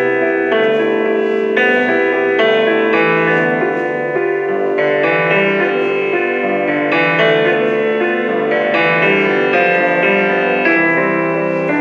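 Instrumental music: a melody of short, separate notes over a steady accompaniment.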